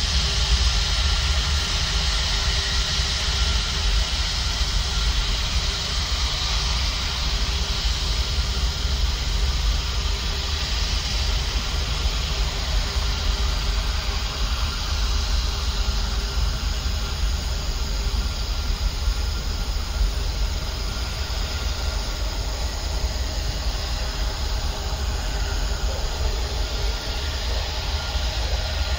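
Airbus A340 jet engines running at low power as the airliner taxis and turns on the runway: a steady deep rumble and hiss with a faint steady whine.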